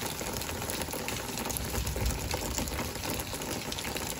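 Heavy rain pouring down in a thunderstorm: a steady hiss of falling rain with dense pattering of drops on concrete and plastic.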